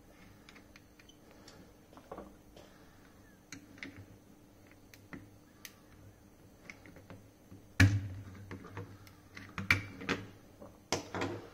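Small metallic clicks and scrapes of a screwdriver prying a glass cartridge fuse out of its spring clips on a multimeter circuit board. A sharp click about eight seconds in is the loudest, followed by further bursts of clicking near the end.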